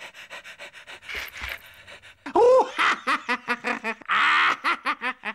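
Cartoon dog panting in quick short breaths, then a cartoon cat crying out in several rising-and-falling meows, with a short hiss about four seconds in.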